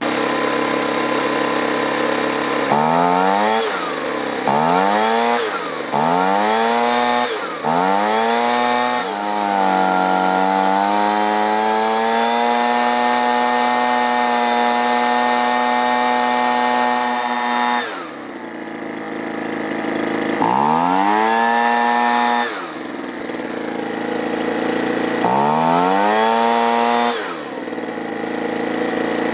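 Two-stroke leaf blower engine idling, then revved up and down again and again, held at high revs for about six seconds before dropping back. It is running with its carburetor's low-speed mixture screw just turned out half a turn and is still not running right, a sign it is still starving for fuel.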